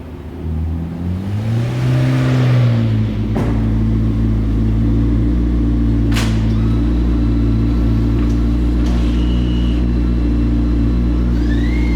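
McLaren P1's twin-turbo V8 rising in revs with a rush of noise over the first few seconds, then running at a steady low drone. Two sharp clicks are heard, about three and six seconds in, and a whine rises near the end.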